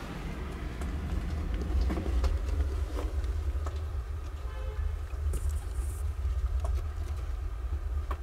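Steady low rumble with scattered faint clicks, and a brief faint high-pitched sound about halfway through.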